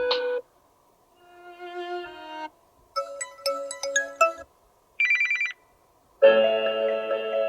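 Samsung Galaxy Tab S7 FE alarm tones played one after another as previews: a string of short melodic ringtone snippets, each cut off after half a second to two seconds, with brief silent gaps between them.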